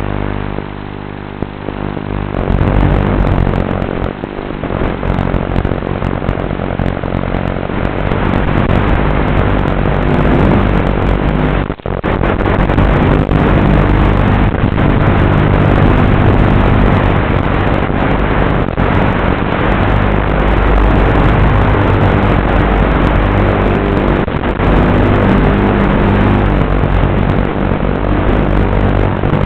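Electric motor and propeller of an FPV flying wing running in flight, a steady buzz with wind rush over the onboard microphone. It gets louder about two seconds in and cuts out for a moment midway.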